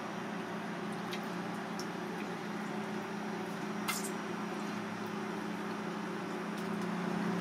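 Steady low machine hum with a few faint, sharp clicks, the clearest about four seconds in.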